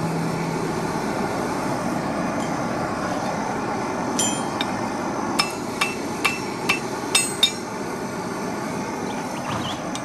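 A farrier's hammer striking a red-hot horseshoe on an anvil: a run of about eight sharp, ringing metal strikes, irregularly spaced, between about four and seven and a half seconds in, over a steady rushing noise.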